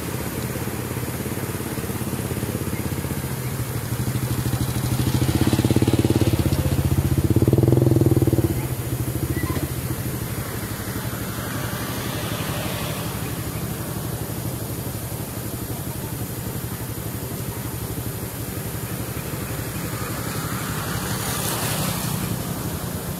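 An engine running steadily, growing louder from about four seconds in and dropping off suddenly at about eight and a half seconds.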